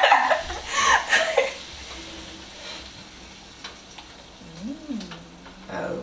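Peppers and onions sizzling in butter in a frying pan as they are stirred, with a few light clicks of the utensil against the pan. Laughter over the first second or so, and a low wavering hum-like voice sound near the end.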